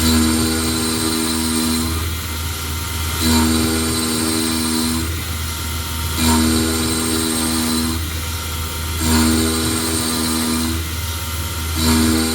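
KX-3 mill cutting a cast iron flywheel blank, a steady low hum under a pitched whine that comes in five times, for under two seconds each, about every three seconds, as the cutter passes through the cut.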